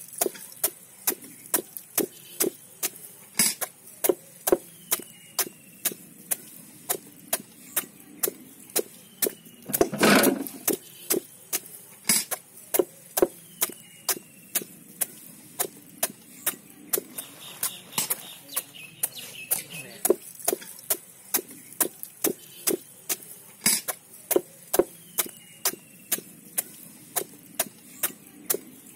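Small hatchet chopping the spiky rind off a raw jackfruit: short, sharp knocks of the blade into the rind at about two a second, with a heavier thud about ten seconds in.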